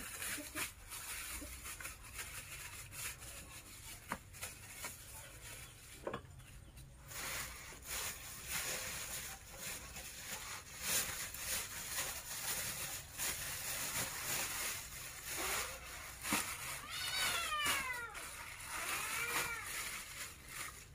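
Domestic cat meowing twice near the end, over the crinkling and rustling of plastic grocery bags being handled and unpacked.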